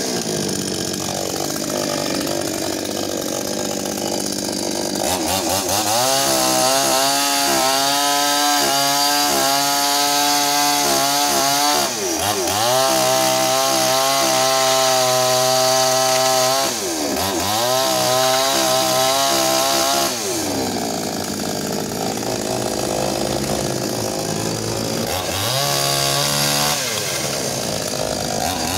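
Maestro 65 cc two-stroke chainsaw running, idling low at first and then revved high about five seconds in. Its pitch dips and climbs again several times as it cuts into thin wood, with one more rise near the end.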